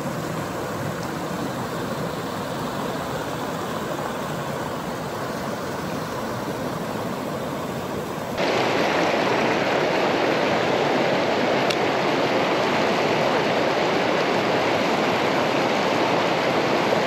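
River rapids rushing over rocks: a steady, even roar of whitewater, growing louder about eight seconds in.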